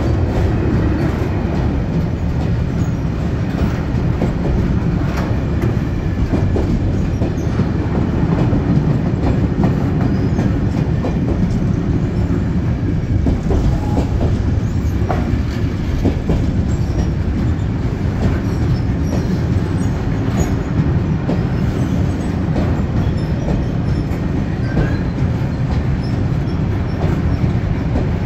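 Freight train of sliding-wall covered wagons rolling past close by, a loud steady rumble of wheels on rail with scattered clicks.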